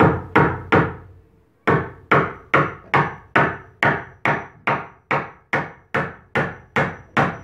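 Claw hammer driving a nail through a wooden batten into a eucalyptus shoring prop, nailing bracing across the props. There are three blows, a pause of about a second, then a steady run of blows at a little over two a second, each with a short ring.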